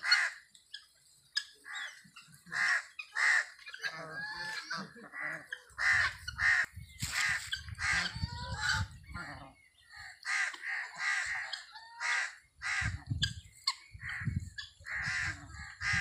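Free-range poultry flock calling: short, repeated squawks about once or twice a second, with spells of low rumble partway through and near the end.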